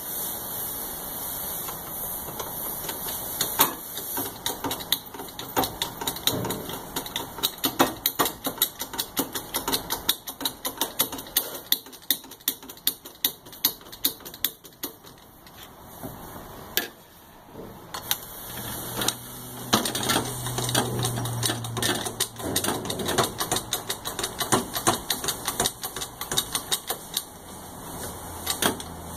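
Hand-pumped 2-ton hydraulic bottle jack of a tincture press being worked with its steel jack handle: a long run of quick, irregular sharp clicks and knocks from the pump strokes as the press plate is driven down.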